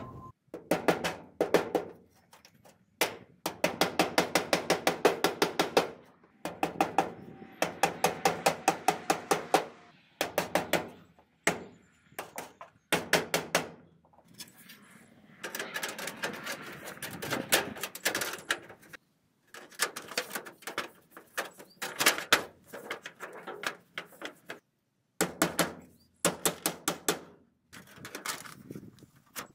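Runs of quick, evenly spaced hammer blows, about six a second, broken by short pauses: nailing metal soffit panels into the wooden eave framing.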